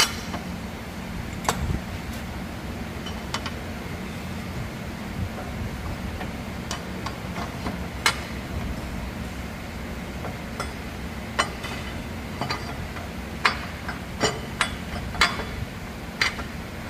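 Metal tools and tractor transmission parts clinking and tapping against each other at irregular intervals, a dozen or so sharp clinks, more of them in the second half, over a steady low hum.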